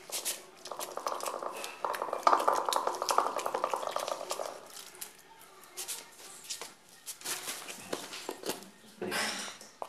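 Beaten egg and chopped onion being stirred in a steel kadhai: rapid scraping and clinking against the metal bowl for about three and a half seconds from about a second in, then a few scattered clinks, with a short louder scrape or rustle near the end.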